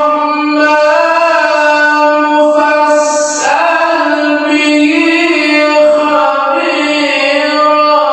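A qori's voice reciting the Quran in the melodic tilawah style, holding long high notes with slow ornamented turns of pitch. A brief hissing consonant breaks the line about three seconds in.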